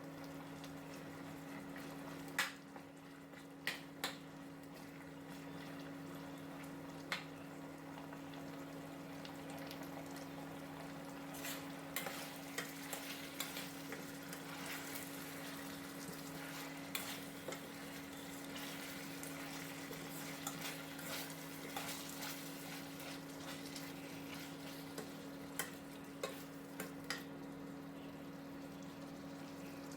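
Boneless chicken frying in a pan with a faint sizzle, stirred with a metal utensil that clicks and scrapes against the pan: a few sharp knocks in the first seven seconds, then frequent clatter from about 11 s on. A steady low hum runs underneath.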